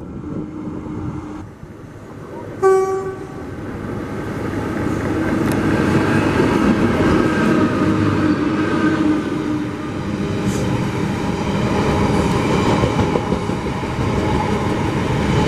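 A train horn gives one short, sharp toot a little under three seconds in. Then a train passes at speed, with a loud rush and rumble of wheels on the rails that builds for a few seconds and stays loud.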